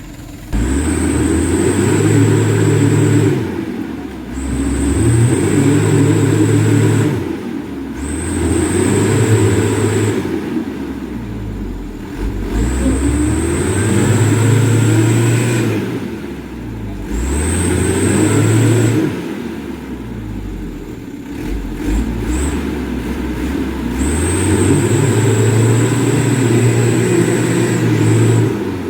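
Mitsubishi Canter HD 125PS turbo-diesel truck engine revving hard about seven times in a row, each surge lasting two to three seconds with a high whine on top, dropping back between them: the heavily loaded truck straining to pull through slippery mud.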